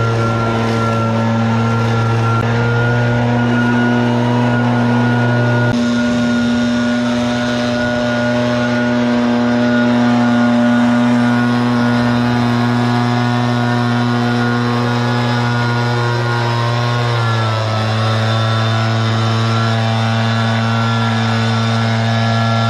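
RedMax EBZ8560 backpack leaf blower's two-stroke engine running steadily at full throttle while blowing leaves, its pitch dipping slightly about three quarters of the way through.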